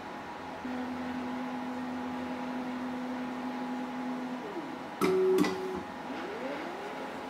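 DIY SLS 3D printer's stepper motors running while laying down powder layers: a steady whine for a few seconds, then whines that rise and fall in pitch, with a louder clatter about five seconds in.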